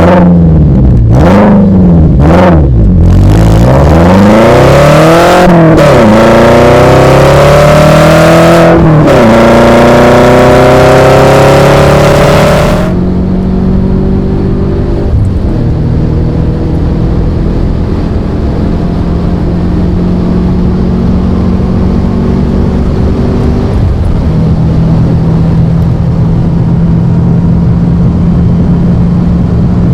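VW Passat W8's 4.0-litre eight-cylinder engine heard through a full aftermarket exhaust from the catalytic converter back. It revs up and down several times, then accelerates with the pitch climbing, drops sharply at a gear change about nine seconds in and climbs again. From about thirteen seconds it settles into a steady, quieter drone at constant speed.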